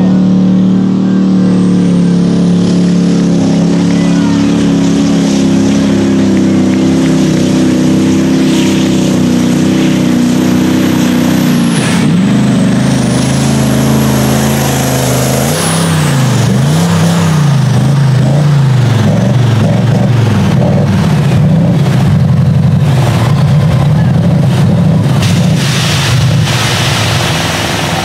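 Iveco pulling truck's diesel engine at full load hauling a weighted sledge, running at steady high revs with a high whistle above it. About twelve seconds in the engine note drops, then its pitch swings up and down for several seconds as it labours, before it settles again.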